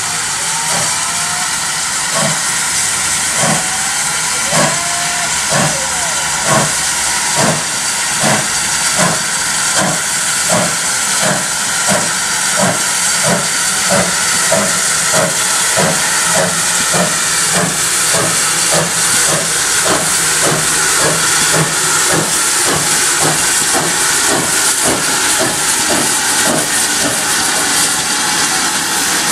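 GWR 57xx 0-6-0 pannier tank 5764 pulling away with a passenger train. Its exhaust beats chuff about once a second at first and quicken steadily to about two a second as it gathers speed, over a steady hiss.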